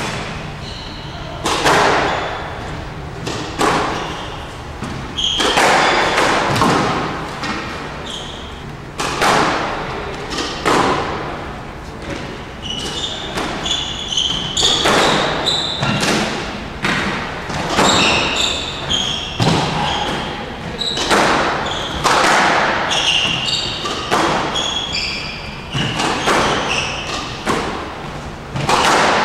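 Squash rally: the ball hitting rackets and the court walls, sharp echoing impacts about every second or so, with short squeaks from players' shoes on the court floor between the hits.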